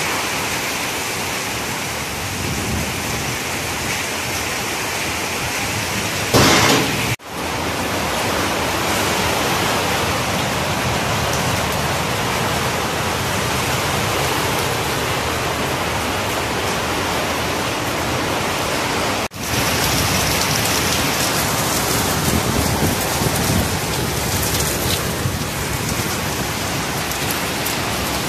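Heavy downpour: a steady hiss of rain falling on roofs, paving and trees. There is a brief louder rush about six seconds in, and the sound cuts out for an instant twice, about seven and nineteen seconds in.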